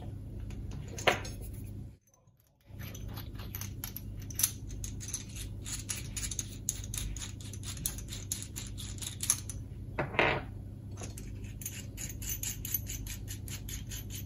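Small metal clicks and clinks as hands handle a freshly soldered SO-239 coax connector and its wire on a wooden tabletop, over a low steady hum.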